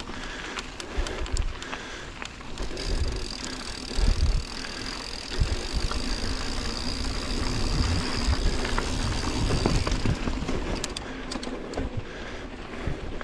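Yeti SB150 mountain bike riding a dirt trail, heard from a GoPro on the bike or rider: tyre and drivetrain rattle, repeated low thumps of bumps and wind on the mic, and sharp clicks. A steady high whine sets in about three seconds in and stops near ten seconds.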